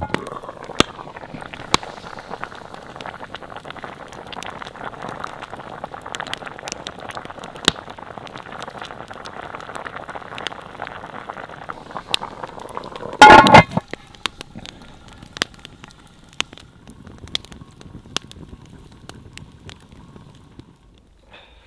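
Stew bubbling at a rolling boil in a cast iron Dutch oven over a wood fire, with the fire's sharp crackles and pops throughout. About thirteen seconds in, one loud metallic clank, the heavy cast iron lid being set back on; after it the sound is quieter, with scattered crackles.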